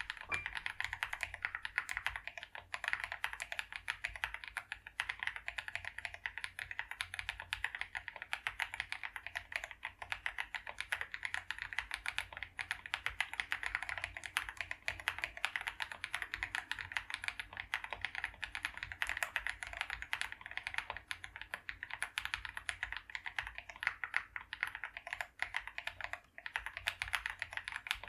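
Continuous fast typing on an Epomaker RT100 mechanical keyboard, a dense, steady stream of key clicks.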